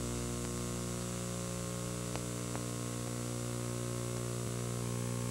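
Steady electrical mains hum and buzz with a light hiss, the noise floor of an analog videotape transfer over a blank picture; two faint ticks a little over two seconds in.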